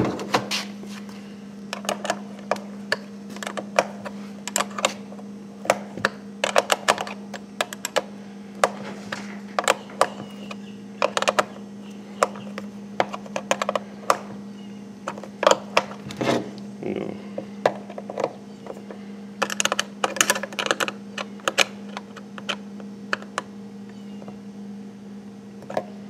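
Irregular small clicks and taps of metal hand tools working the latch and handle hardware on a plastic outboard cowling, over a steady low hum.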